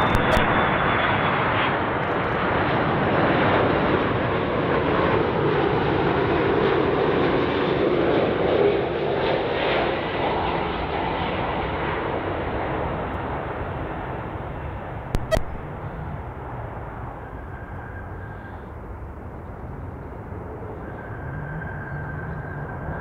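Airbus A330-300 airliner with General Electric CF6 turbofans passing on final approach. It makes a loud jet rush with a high whine that fades steadily as it moves away toward the runway.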